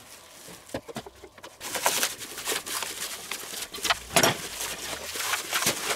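Clear plastic packaging film crinkling and rustling as it is pulled off a wrapped grill part, a run of irregular crackles starting about two seconds in after a few faint clicks.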